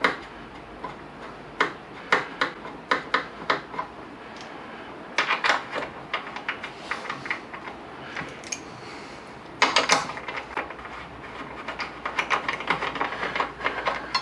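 Socket ratchet clicking in short runs of quick ticks as a motorcycle brake caliper mounting bolt is wound in up to touch, with a louder cluster of clicks near the middle.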